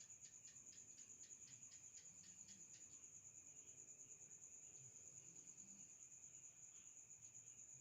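Crickets trilling faintly: one steady high-pitched trill throughout, with a second series of rapid chirps, about five a second, that stops about three seconds in.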